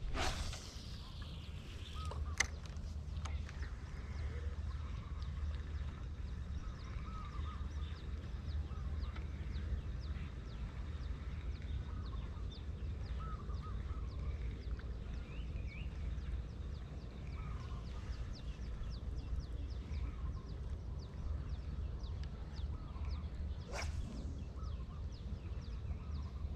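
Outdoor ambience of birds chirping and calling here and there over a steady low wind rumble on the microphone, with a falling swish right at the start and a sharp click about two seconds in.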